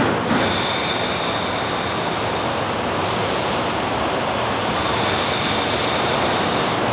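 Ocean surf rushing steadily, with a brief higher hiss of washing water about three seconds in.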